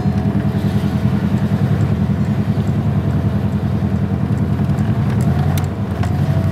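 Chevrolet van's engine and road noise heard from inside the cab, running steadily as the van drives slowly uphill, as a low, even drone.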